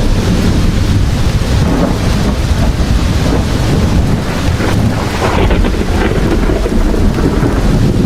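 Steady rain hiss over a continuous deep rumble of rolling thunder, with a brief swell in the rumble about five seconds in.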